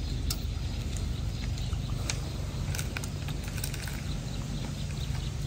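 Outdoor ambience: a steady low hum with scattered small clicks and ticks.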